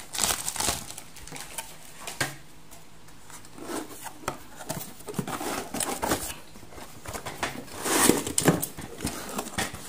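Plastic bag crinkling and a cardboard box rustling and scraping as things are handled and lifted out of it, in irregular short bursts; the loudest burst comes about eight seconds in.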